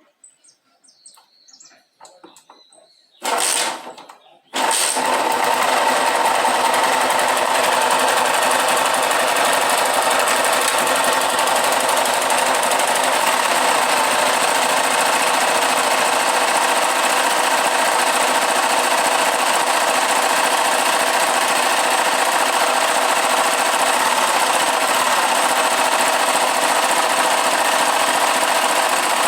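Single-cylinder engine of a kick-start Honda motorcycle, opened up with the clutch cover off: a brief burst about three seconds in, then it catches and runs steadily with a rattly growl. The mechanic puts the noise, lessened but still there, down to worn crankshaft bearings.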